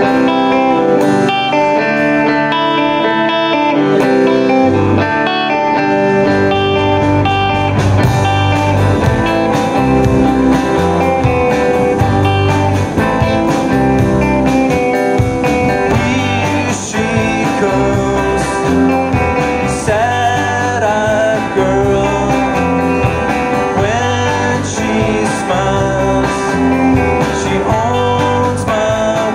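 Indie rock band playing a song live, led by guitar, with singing in places.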